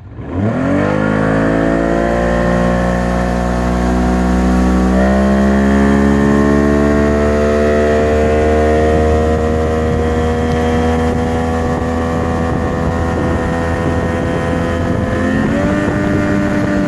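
Freshly rebuilt 1994 Mercury 60 hp three-cylinder two-stroke outboard opened up to full throttle: the revs climb quickly over the first second or two, keep rising as the boat comes onto plane, jump up again about five seconds in, then hold steady at high speed with a slight further rise near the end.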